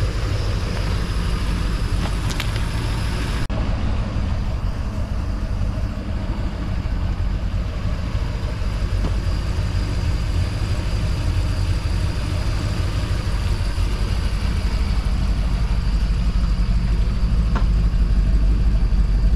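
1968 Mercury Colony Park's V8 idling steadily, a low even rumble that grows a little louder near the end.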